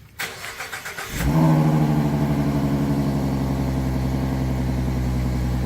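2014 Ford Mustang V6's 3.7-litre Cyclone engine, on its stock headers and exhaust, cranking on the starter for about a second, then catching with a brief rise in revs and settling into a steady idle.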